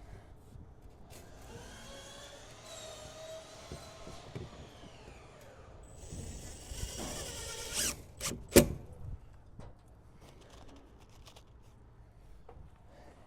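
A power drill runs twice, driving screws through aluminum soffit vents. The first run winds down in pitch; the second is louder. A sharp knock comes just after the second run.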